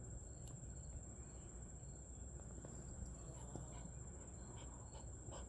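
Two small dogs, a Yorkie and a Havanese, play-fighting quietly: faint scuffles and small scattered clicks, over a steady high-pitched whine.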